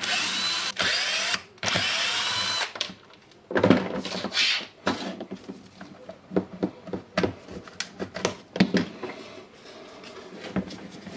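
Cordless drill-driver spinning screws out of a plastic tool housing. It runs twice at the start, for about a second and then about two seconds, with its whine shifting in pitch, then once more briefly about four seconds in. After that come light clicks and knocks as the handle housing is pulled apart.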